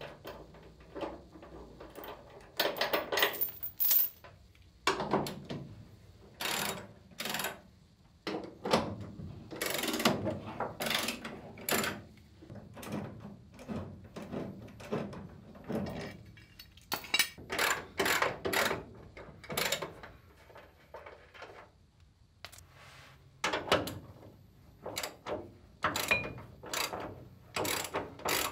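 Hand socket ratchet clicking in repeated short strokes as a bolt is turned under a car, with metal tools and parts handled between the strokes.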